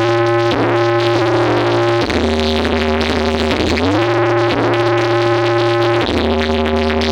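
Loud electronic music played through a carnival sound system during a sound check: a synthesizer lead holds notes and slides up or down to a new note about every two seconds, over a sustained deep bass.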